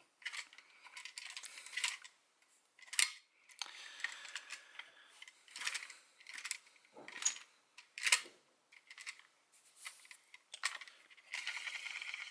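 Small plastic PowerRider toy key handled by hand: irregular clicks, taps and light rattling scrapes as its spinning part is turned and fiddled with.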